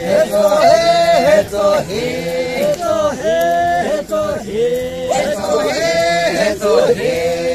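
Group of Pochury Naga men singing a traditional chant together, holding notes that slide down at the end of each short phrase.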